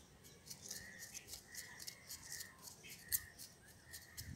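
Small metal hand trowel scraping and digging through dry, crumbly potting soil in a clay pot: a run of short gritty scrapes and clicks, with one sharper click about three seconds in, as fertiliser is worked into the soil.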